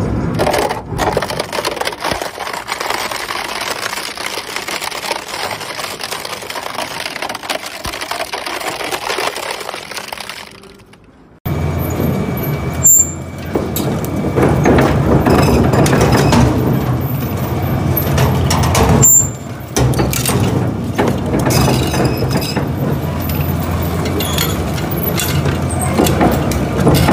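Twin-shaft shredder crushing a plastic pallet, a dense crunching and cracking that fades away. After a sudden change, a twin-shaft shredder's motor runs steadily while its hooked cutters grind and scrape at a steel gas cylinder, with a sharp crack soon after it starts.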